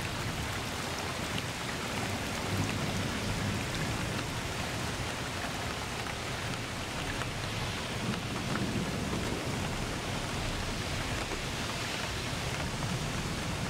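Steady rain falling, a fine patter, with a few low rumbles swelling and fading underneath.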